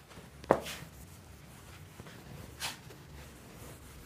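Whiteboard being wiped with a duster: a soft knock about half a second in, then a short scrub about two and a half seconds in, over quiet room noise.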